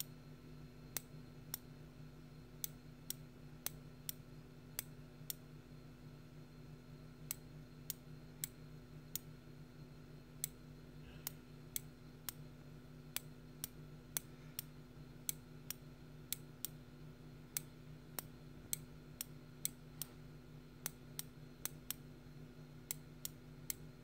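Opened micro switch with its cover removed, its leaf-spring contact snapping over as the actuator is pressed and released: sharp small clicks, about one to two a second, throughout.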